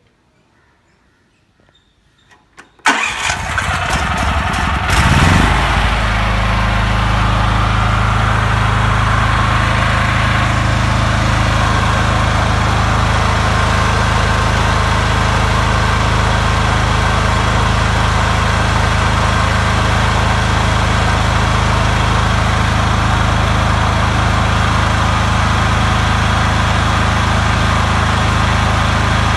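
Portable generator engine starting about three seconds in, its pitch rising for a couple of seconds as it comes up to speed, then running at a steady constant speed.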